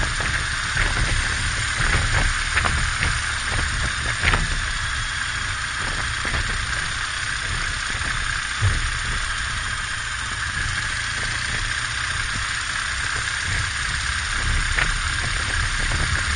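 BMW R1200GS boxer-twin engine running under way, mixed with steady wind noise on the microphone. A few short knocks come through, the loudest a low thump about halfway.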